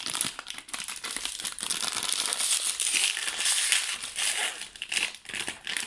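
Plastic toy packaging crinkling and crackling as it is unwrapped by hand, in a dense run of small crackles.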